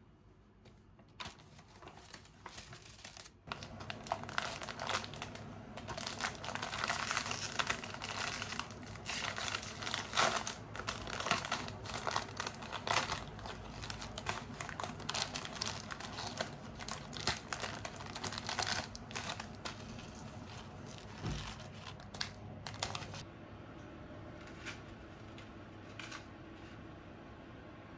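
Plastic food packaging crinkling and rustling as hands unwrap a packaged tray of fresh noodles, with some tearing. The crackling stops about 23 seconds in, leaving a faint steady hiss.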